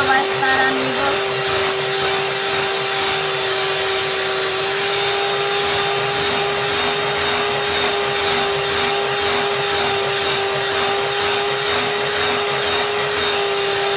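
Electric hand mixer running steadily at one speed, a constant motor whine, its beaters whipping a thick cream-cheese, peanut-butter and whipping-cream frosting in a glass bowl.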